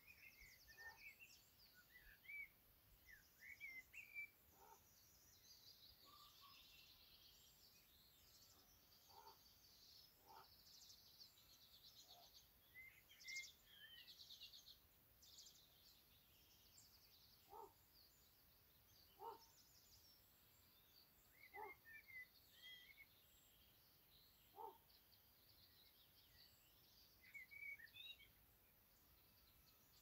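Faint birdsong from several small birds: high chirps and rapid trills overlapping throughout, with short, lower single calls every couple of seconds in the second half.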